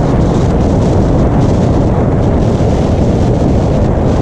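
Toyota Tacoma rally truck driving at speed on a desert dirt track: a loud, steady rumble of engine and tyres, heavily buffeted by wind on the microphone.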